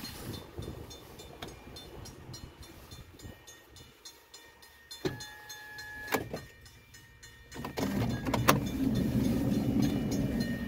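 A car's electric window motor whines for about a second midway, with a click as it starts and stops. A faint regular ticking runs underneath, and a louder low noise comes up in the last three seconds.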